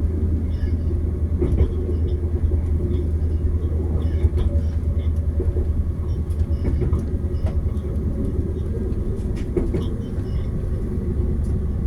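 Passenger train running, a steady low rumble with scattered light clicks and rattles.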